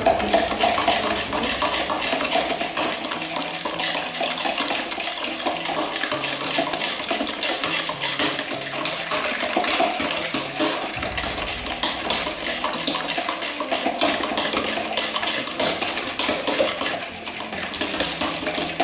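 Metal spoons stirring and scraping in mixing bowls: a continual clatter against a glass bowl and a plastic bowl, through a wet, foamy slime mixture of wood glue and shaving foam.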